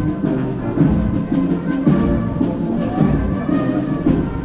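Brass band playing a dance tune with a steady drum beat, about two beats a second.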